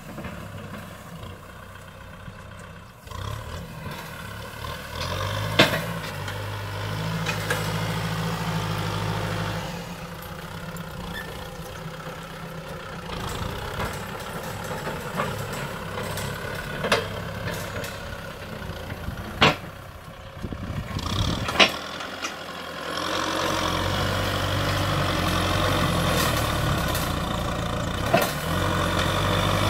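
Kubota M6040SU tractor's diesel engine running steadily as it drags a disc harrow through dry, cloddy soil, louder over the last several seconds as it comes close, with a few sharp knocks along the way.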